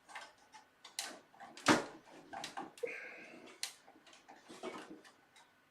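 Plastic clicks, knocks and scuffs from a stubborn motherboard power cable connector being worked loose inside a PC case. The loudest knock comes a little under two seconds in, with others around one second and three and a half seconds.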